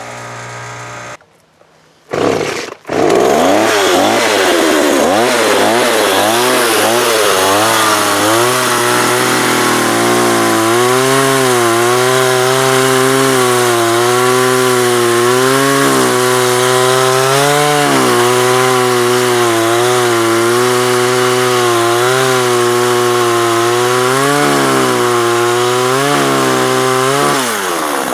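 Chainsaw with a freshly sharpened chain starting up about two seconds in, its pitch rising and falling as it is revved, then running steadily while cutting through wood, the pitch sagging and recovering every second or two as the chain bites.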